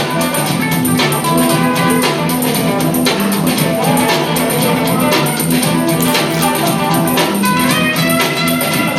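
Loud dance music with a steady beat, bass and guitar.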